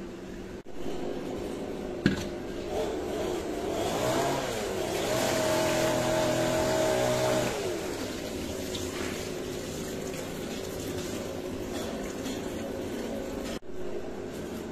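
A motor engine revving up, holding a steady pitch for a few seconds, then winding back down, over a constant background hiss. A single sharp knock comes about two seconds in.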